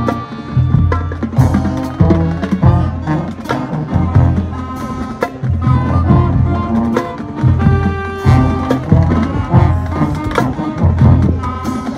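High school marching band playing: brass horns sounding over a drumline, with heavy bass-drum hits and sharp drum strokes in a steady rhythm.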